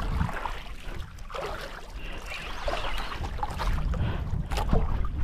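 Wind buffeting the microphone and sea water slapping a small outrigger boat, with faint ticking from an overhead jigging reel as its handle is cranked while a fish is played.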